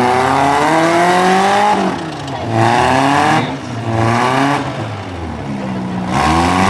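Four-cylinder compact demolition-derby car engines revving hard. The engine pitch climbs, falls away about two seconds in, rises and falls twice more, then climbs again near the end.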